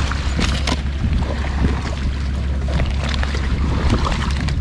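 Strong wind buffeting the microphone in a steady low rumble, with short rustles and clicks from a soft cooler bag being unzipped and opened by hand.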